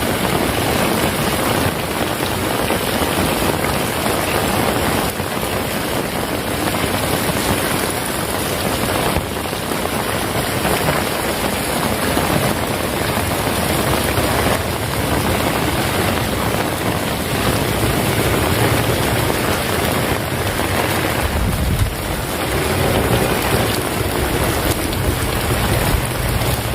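Heavy rain falling steadily, a dense even hiss. A low rumble comes in about three-quarters of the way through and carries on.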